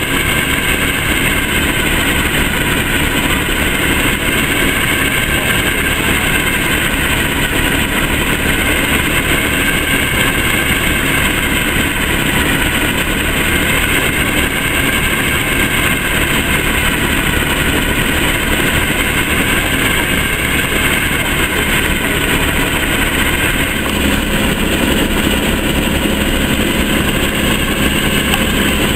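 Diesel locomotive engine idling steadily, a continuous low running note, with a further low hum joining about 24 seconds in.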